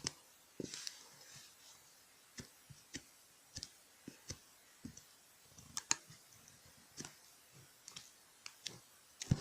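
Irregular light clicks and taps, roughly one or two a second, against a quiet background.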